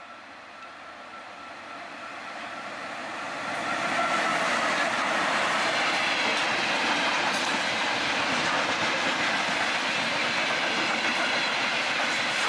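2ES5 electric freight locomotive hauling a train of tank wagons, approaching and passing close by, growing louder over the first four seconds. It then settles into a steady loud rush of wheels on rails as the tank wagons roll past.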